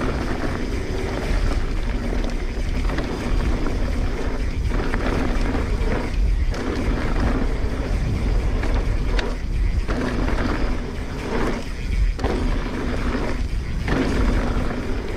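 Transition Sentinel full-suspension mountain bike rolling fast down a dirt trail: tyre rumble and rattle over the ground, with brief lulls every second or two. Wind buffets the microphone throughout.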